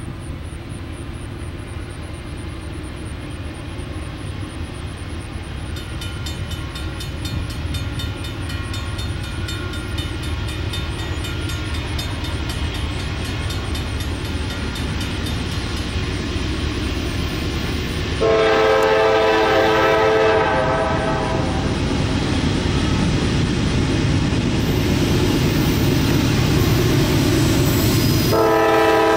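Norfolk Southern freight train's diesel locomotives approaching, the engine rumble and rail noise growing steadily louder. The air horn sounds a long blast about two-thirds of the way through and sounds again near the end.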